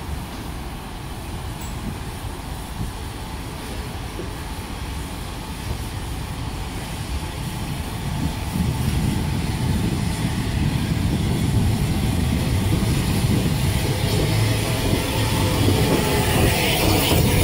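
Steam locomotive and its train running into the platform, a low rumble that grows steadily louder as it comes near and draws alongside, with a hiss rising near the end.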